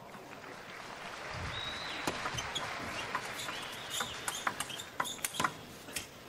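Table tennis rally: sharp clicks of the ball striking bats and table, coming thick and fast for a few seconds. Under them, crowd noise swells during the point, with a few short squeaks.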